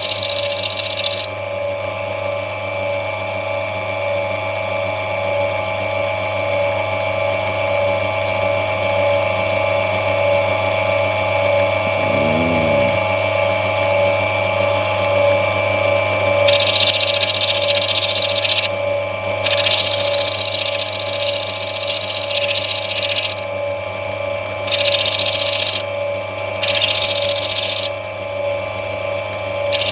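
A lapidary grinding machine running with a steady hum, while a black opal is pressed against the spinning wheel to rub it back, giving a loud hiss in several separate stretches, most of them in the second half.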